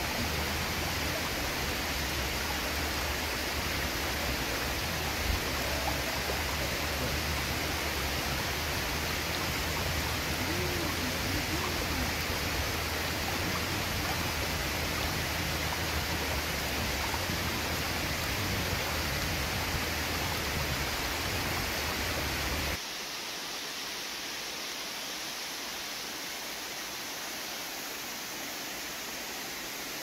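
Steady rush of a shallow rocky forest stream. About three-quarters of the way through it drops suddenly to a quieter, thinner rush of water with the low rumble gone.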